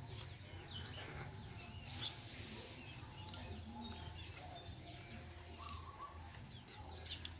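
Small birds chirping on and off over a low steady hum, with a few light clicks as a spoon scrapes and taps inside a boiled balut duck egg's shell.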